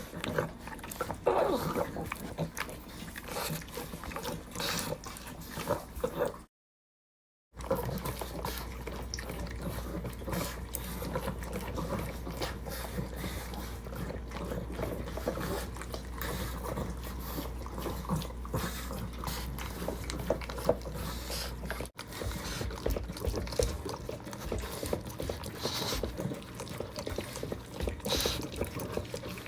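Pugs licking and slurping at lick mats, in three separate takes, one dog in each. Each pug has its own licking sound; the first take breaks off briefly after about six seconds and the third begins about twenty-two seconds in.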